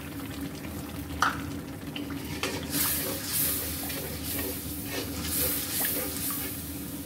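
A metal spatula stirring and scraping a watery spice paste in a steel karahi, which sizzles and bubbles over the gas flame. There is one sharp knock about a second in, and the sizzle swells in waves through the middle.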